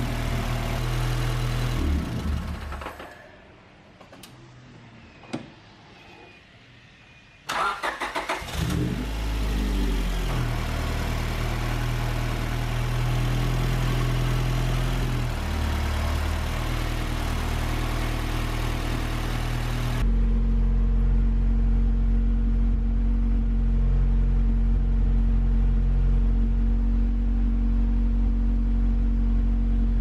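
A Honda B16A 1.6-litre DOHC VTEC four-cylinder engine cranks and catches about seven seconds in, after a few quieter seconds with one click, then keeps running steadily. The engine is also heard running in the first couple of seconds.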